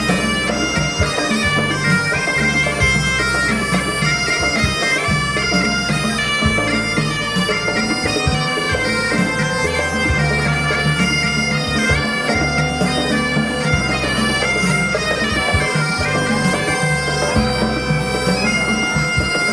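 A pipe band playing: bagpipes sound a marching tune over their steady drones while double-headed drums beat along.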